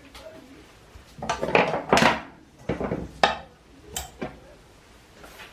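Cookware and utensils clattering: a run of sharp knocks and clanks, loudest and most crowded in the first couple of seconds, then a few single knocks.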